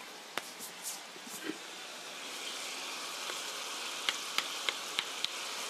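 Chicken pieces sizzling in a frying pan in sauce, a steady hiss that grows a little stronger after a couple of seconds. From about four seconds in come a few light clicks of a metal spoon against a wooden spoon as the chili paste is scraped off into the pan.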